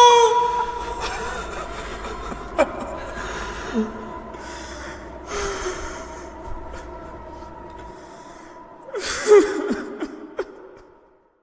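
People crying in grief: sobs and gasping breaths over a faint steady tone, with a louder burst of sobbing about nine seconds in, then it cuts to silence.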